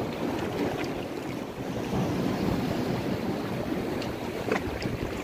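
Water sloshing and surging in a narrow gap between concrete blocks, with wind on the microphone.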